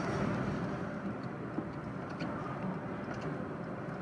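Steady background din of a shop's arcade area, with a few faint clicks.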